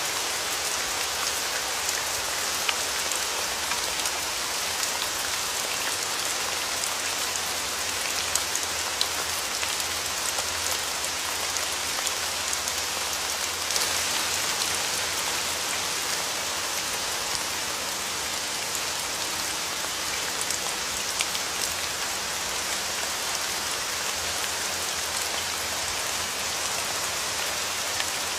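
Steady rain falling, a dense even hiss with scattered sharper drop ticks.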